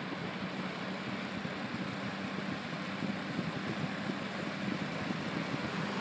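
Holmes fan heater running on its cool-air fan setting: a steady rush of air with a low, even motor hum, nice and quiet.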